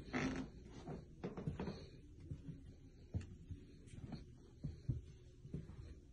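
Faint, irregular footsteps and soft thumps of someone walking across a hard floor, a few steps or knocks a second, over a low room hum.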